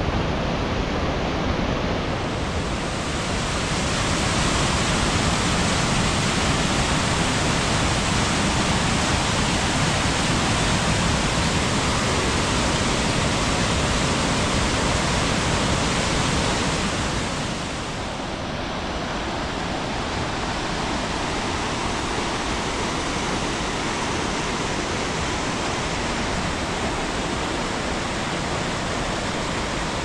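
Waterfall: a steady rush of falling water with no break. The sound grows brighter about two seconds in and drops slightly in level around seventeen seconds in.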